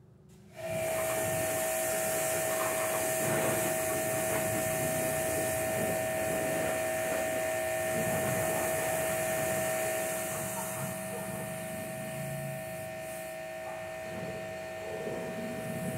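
Pressure washer switching on abruptly and running steadily, a high whine over the hiss of the spray, blasting mud off the machine; the hiss eases a little about ten seconds in.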